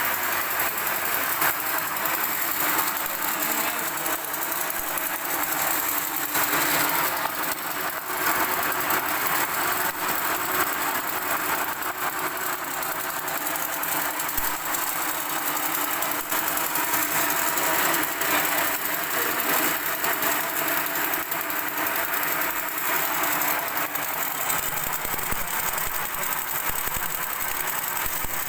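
Electric extruder machine, 6 kW three-phase, running steadily: a continuous mechanical noise that holds an even level throughout.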